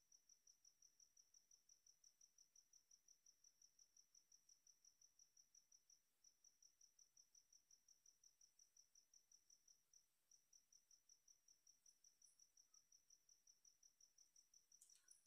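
Near silence with a faint cricket chirping steadily, about five or six high chirps a second, pausing briefly twice.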